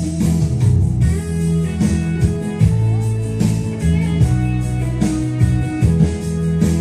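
Music led by guitar: plucked and strummed guitar notes over a steady bass and beat, an instrumental passage with no singing.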